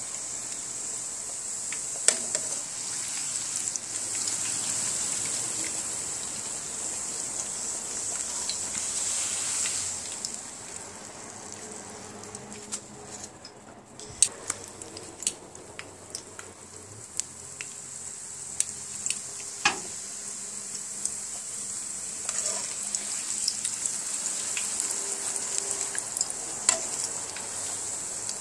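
A corn tortilla frying in hot oil in a skillet: a steady sizzle with scattered sharp pops and clicks. The sizzle drops lower for several seconds in the middle, then comes back up.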